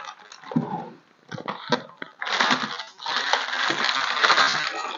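Plastic packaging rustling and crinkling as it is pulled off, with a few light knocks in the first two seconds and denser crinkling from about two seconds in.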